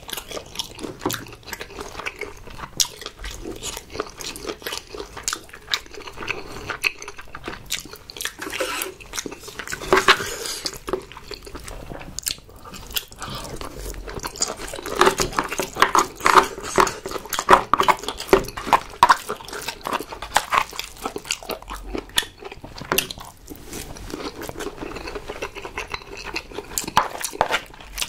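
A person chewing king crab and prawn meat, with many small mouth clicks; the chewing gets busier about halfway through.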